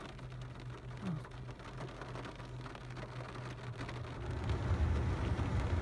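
Rain falling steadily, with many small drop ticks close by. About four seconds in, a low rumble builds and grows louder.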